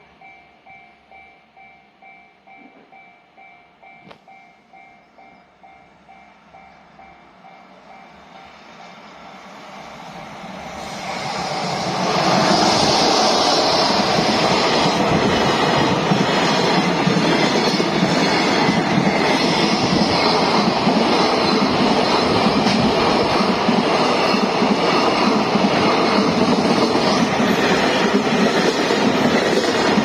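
Japanese level-crossing warning bell ringing, a repeating two-tone ding about twice a second, as a freight train approaches. From about ten seconds in the train passes close by, and the container wagons running over the rails make a loud, steady noise that covers the bell.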